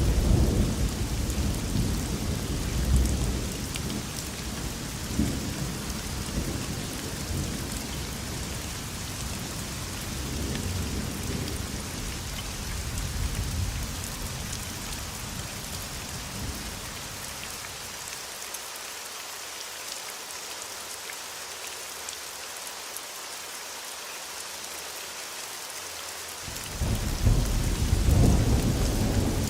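Thunderstorm: steady rain hiss throughout, with thunder rumbling and swelling in the first half, dying away to rain alone past the middle. A loud roll of thunder starts suddenly near the end.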